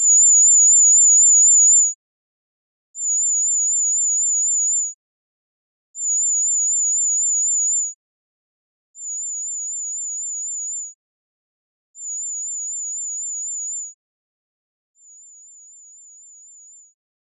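High-pitched warbling test tone from a hearing test, sounded as six two-second beeps about a second apart, getting quieter in steps until the last is faint. The stepping down in loudness checks the threshold at which this frequency can still be heard.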